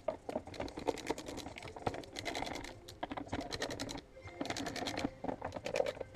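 Hand ratchet clicking in quick runs of sharp ticks, several bursts with short pauses between them, as the screws of a plastic air filter housing are undone.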